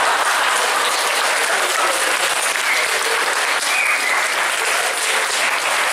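Audience applauding steadily, with a couple of short high cheers about halfway through.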